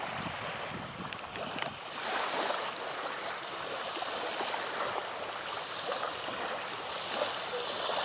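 Small waves washing and lapping on a sandy shore, a steady watery hiss with no let-up.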